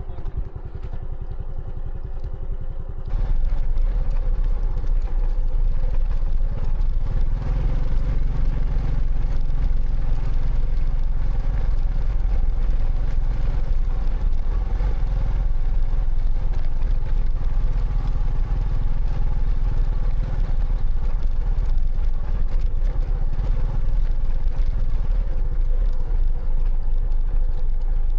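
Motorcycle running steadily with a low rumble, stepping up louder about three seconds in and then holding.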